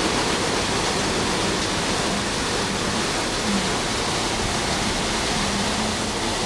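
Risense CF 350 rollover car wash running over a van: a steady rush of spraying water.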